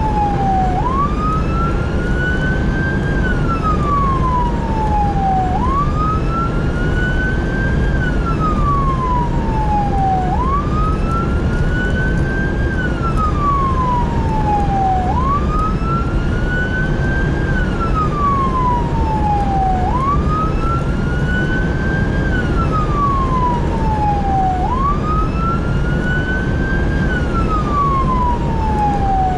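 Fire engine siren on a slow wail, its pitch rising and falling about every five seconds, over heavy engine and road rumble.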